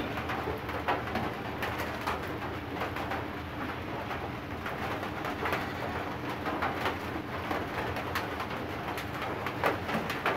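Light clicks and taps of a flyback transformer being pressed onto a CRT TV circuit board and a soldering iron being handled, scattered irregularly over a steady low hum.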